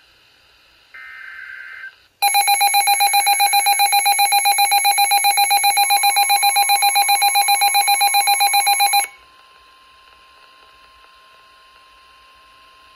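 NOAA weather radio alert: about a second in, a short burst of the warbling digital SAME header, then the receiver's built-in alarm sounding loud, fast electronic beeping at about seven pulses a second for some seven seconds. The broadcast's steady single-pitch warning alarm tone comes in under the beeping and carries on faintly after it stops, signalling that a warning message is about to follow.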